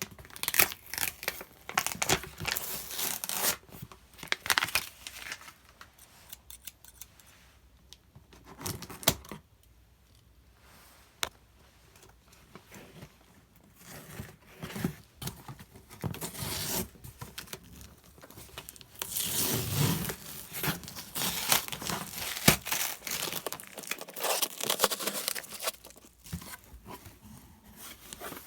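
A parcel of packaging being opened and handled: tape and wrapping tearing, plastic and paper crinkling, in irregular rustling bursts with a few sharp clicks. There is a quieter stretch about a third of the way in.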